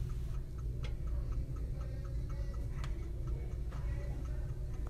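Steady low machine hum with an even, quick ticking of about four ticks a second and a few sharper clicks over it.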